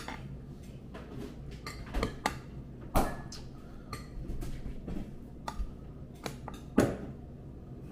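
A few scattered sharp clinks and knocks of dishes and utensils being handled on a table. The loudest come about three seconds in and near the end.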